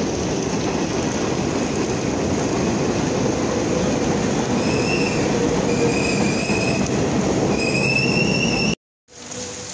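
Heavy rain pouring down on an umbrella and a flooded sidewalk, a loud steady hiss. In the second half a few short high-pitched squeals rise over it. The sound cuts off suddenly near the end.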